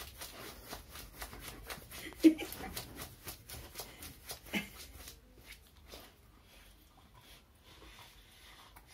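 Dog sniffing rapidly at the floor: a quick, even run of short sniffs that stops about five seconds in. Two brief louder sounds break in, the loudest a little over two seconds in.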